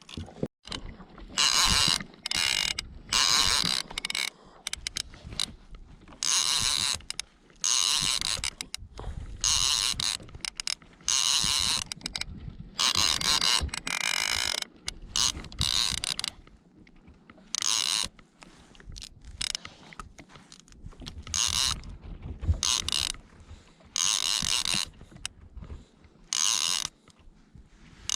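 Fishing reel ratcheting in repeated short bursts, each about half a second to a second long, with brief pauses between them.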